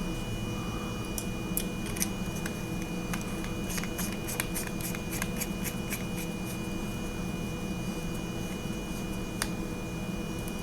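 Stainless steel flashlight parts being screwed back together by hand, the metal threads giving a run of small scratchy clicks midway, over a steady background hum.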